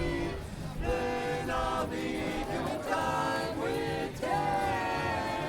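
Several voices singing together, holding notes and moving from one pitch to the next.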